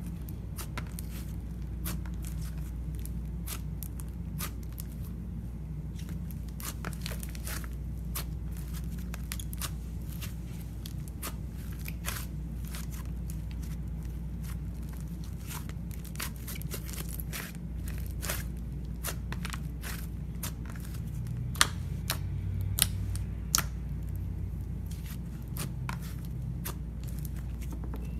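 Slime being pressed, stretched and folded by hand, giving off many small irregular crackling pops and clicks as trapped air bursts, with three sharper snaps a little past two thirds of the way through. A steady low hum sits underneath.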